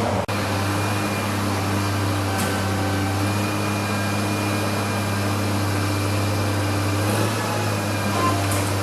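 Garbage truck's engine running at a steady low drone, with a few light clicks on top.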